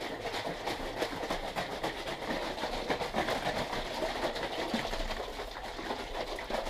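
Two plastic shaker bottles of pancake mix and water shaken hard and fast, a rapid, rhythmic sloshing rattle: the batter being mixed in the bottles.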